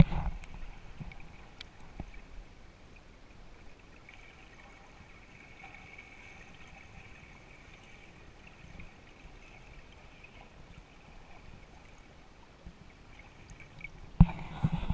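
Water splashing and sloshing around a camera as it bobs at the surface, then a quiet, muffled hiss while it is under water; the splashing comes back suddenly near the end.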